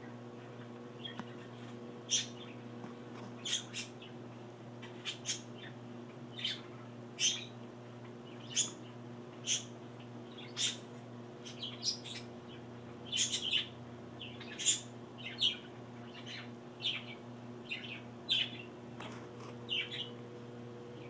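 A guinea pig squeaking: short, high squeaks about once a second, sometimes two or three in quick succession. A steady low electrical hum runs underneath.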